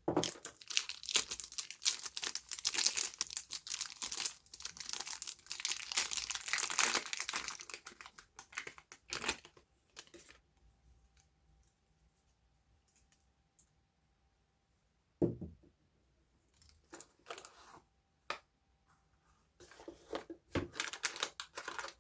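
Soap packaging being unwrapped: the wrapper crinkles and tears steadily for about the first ten seconds. A single thump comes about fifteen seconds in, followed by short bursts of crinkling and a last spell of it near the end.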